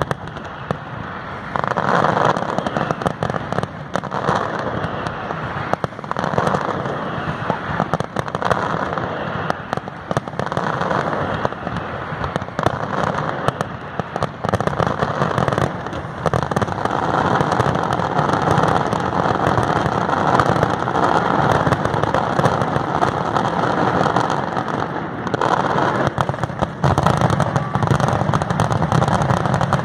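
Fireworks display: a continuous rapid barrage of shell bursts and crackling, growing denser and louder in the second half.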